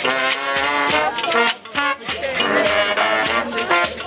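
Upbeat music with horns and a steady percussion beat, in a Latin style.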